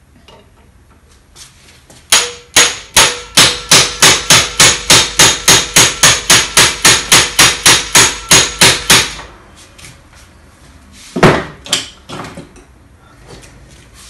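A fast, even run of roughly two dozen hammer blows, about four a second, on a manual impact driver working at a stuck cross-head screw, each strike ringing faintly of metal. A couple of seconds later come two more separate knocks.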